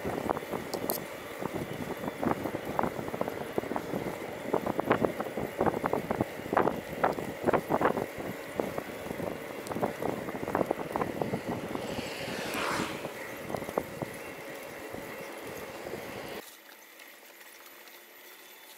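A bicycle rattling and knocking over a rough surface, with a steady whine underneath and a brief falling whistle about two-thirds in. Near the end it drops suddenly to a faint hum.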